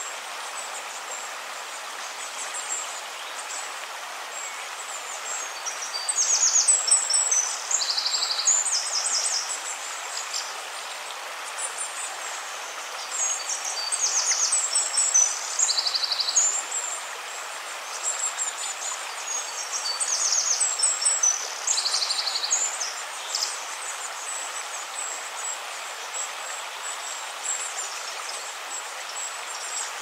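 Nature-sounds recording of running water with birds singing over it: a steady rush of water throughout, and three spells of high chirps and fast trills a few seconds long.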